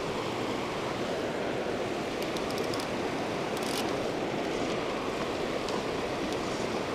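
Steady rush of a fast, rocky river running through riffles and over boulders, an even, unbroken water noise.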